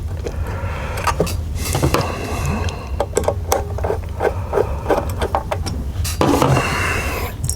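Irregular small clicks and taps of a screwdriver and hands working on the plastic housing of a car radio and touch-screen unit as its screws are driven in, with a stretch of scraping near the end. A steady low hum runs underneath.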